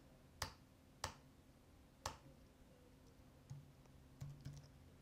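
A few sharp, isolated computer keyboard keystrokes, three of them about a second apart and then two fainter ticks, over near-silent room tone.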